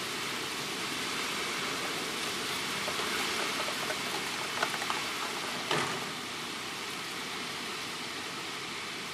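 Hurricane wind rushing through tree leaves, with rain: a steady wash of noise that swells a little in the middle. A few sharp ticks come about four and a half seconds in, and a short knock follows near six seconds.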